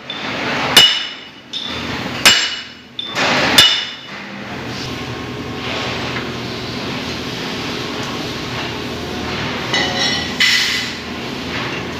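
A steel cylinder is struck hard against a steel injection mold three times, each blow ringing sharply. After that a steady machine hum runs on, with a couple of light metal clinks about ten seconds in.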